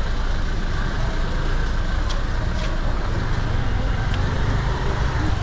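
Busy city street ambience: a steady low rumble of slow car traffic with faint voices of passers-by and a few faint clicks.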